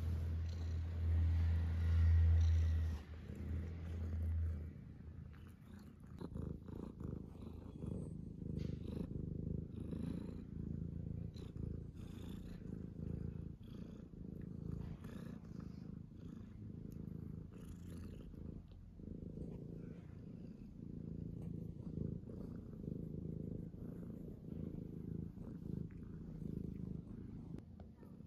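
Domestic cat purring steadily while its chin is stroked, a low, pulsing rumble that is loudest for the first few seconds.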